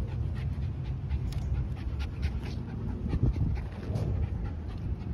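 Jack Russell terrier panting rapidly, a quick run of short breaths, about four a second.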